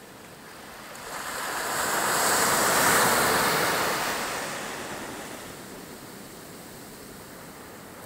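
A wave breaks and washes up a sandy beach. The surf swells to its loudest about three seconds in, then slides back down to a low wash.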